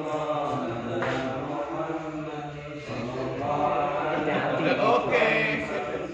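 A group of men chanting prayers together, many voices overlapping, with a brief lull about halfway through.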